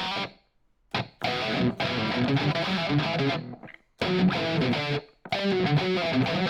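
Distorted electric guitar playing a riff in short phrases with brief breaks between them.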